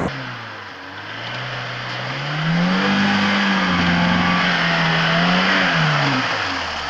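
Lada Niva's four-cylinder petrol engine revving up under load as it drives through a muddy puddle, held high for about three seconds and easing off near the end, with water splashing around the wheels.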